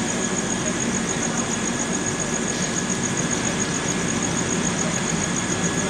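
Steady rain with the continuous low hum of idling railway machinery beside a stationary train.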